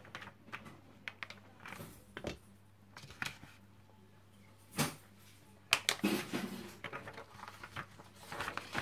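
Soft paper rustling and small knocks as a sheet is rolled with a rubber brayer and peeled off a homemade gelatin printing plate, with one sharp click about halfway through.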